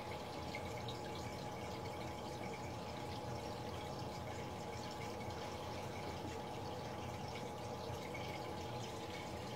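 Aquarium water trickling and dripping steadily, as from a filter's outflow, over a constant thin hum.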